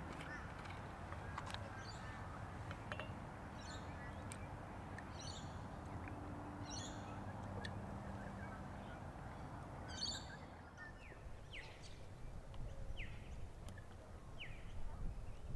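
Birds calling over a low, steady outdoor rumble: scattered short chirps, then a run of quick falling calls near the end.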